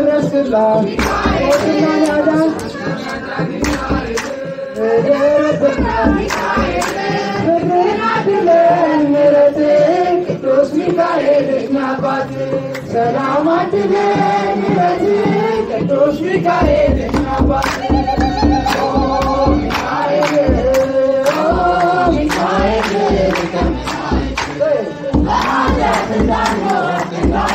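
A group singing an Ethiopian Orthodox hymn in unison, accompanied by a beating kebero drum and hand claps; the drum beats grow heavier about halfway through.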